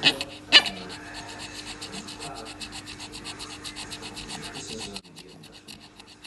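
Small fluffy white dog giving two short, sharp yaps about half a second apart at the start, over a faint fast, even ticking in the background that stops about five seconds in.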